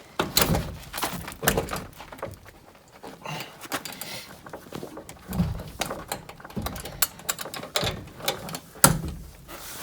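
Irregular knocks, clicks and thunks of a central vacuum's collection canister, full of rice, being handled.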